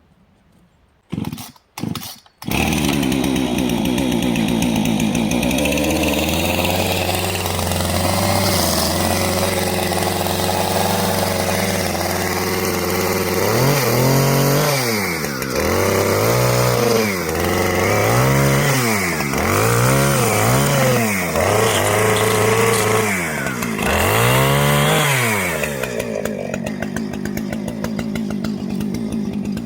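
Chainsaw starting after a few short bursts, then running steadily while bucking a spruce log to length. Through the middle its pitch rises and falls over and over as the throttle is opened and eased in the cut.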